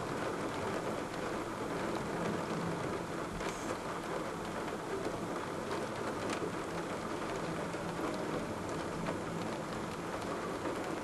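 Steady hiss of a heavy downpour during a thunderstorm, with a few sharp clicks of drops striking close by.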